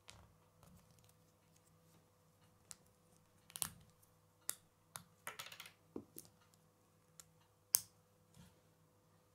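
K'nex plastic rods and connector pieces clicking and snapping together as they are handled and pushed into place: a series of sharp clicks with a short rattle in the middle and the sharpest snap near the end, over a faint steady hum.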